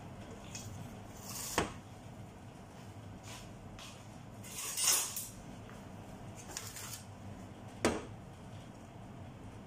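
Kitchen handling sounds: three separate sharp knocks, like things being set down or a cupboard shutting, and a brief rushing hiss about halfway through.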